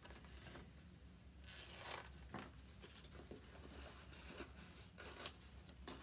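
Faint paper handling: scissors snipping and paper rustling, with a short sharp click about five seconds in.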